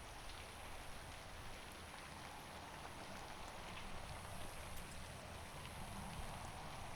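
Faint, steady hiss of light rain, with a few scattered faint ticks.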